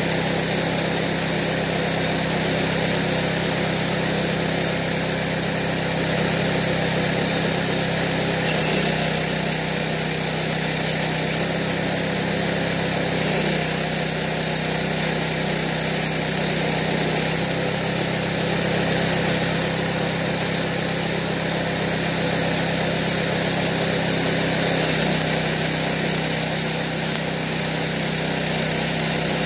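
Small engine running steadily, driving a Delco Remy car alternator rewired as a welder, with the crackle of a stick-welding arc over it. The engine's low note shifts slightly a few times.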